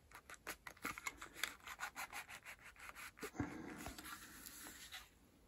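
A tight little paper matchbox-style box being worked open by hand. A string of small scratching clicks as the fingers pick at it, then a longer rubbing scrape as the paper drawer slides out, stopping a little after five seconds in.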